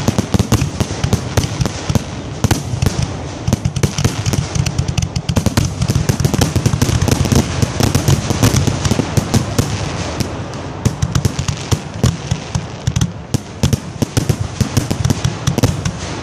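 Fireworks finale: a dense, continuous run of bangs and crackling from aerial shells and ground-fired pyrotechnics, many reports a second without a break.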